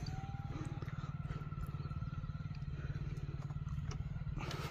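Steady low drone of a motor running at an even speed, with a fast regular pulse.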